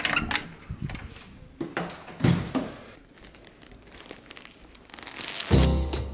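Packaging being handled, crinkling and tearing in irregular rustles. Music starts near the end.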